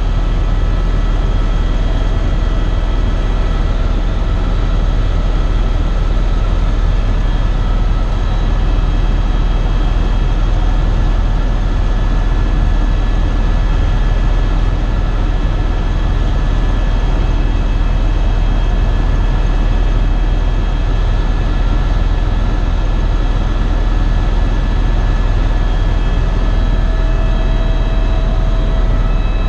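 Eurocopter EC130 EcoStar single-turbine helicopter running steadily, its rotor and turbine noise heard as a constant heavy drone with a thin whine on top, as heard from inside the cabin.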